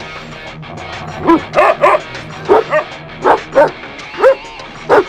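A dog barking in short, high-pitched yips, about nine in all, several in quick pairs, over background music.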